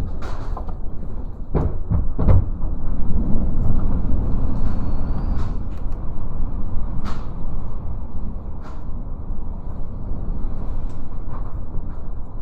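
Strong typhoon wind gusting and buffeting the microphone, rising and falling, with a cluster of sharp knocks about two seconds in and another about seven seconds in.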